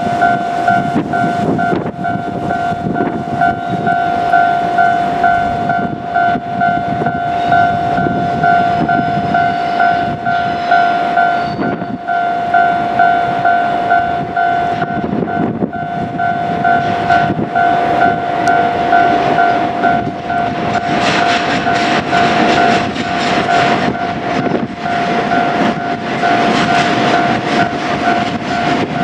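Level-crossing warning bell ringing in a steady, rapidly repeating electronic tone while a container freight train rolls through, its wheels rumbling and clattering over the rail joints. The clatter grows louder and brighter in the last third.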